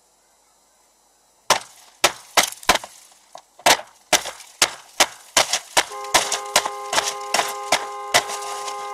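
A rapid series of hard blows striking the car, about two or three a second, starting a second and a half in. From about six seconds in a car horn sounds steadily under the continuing blows.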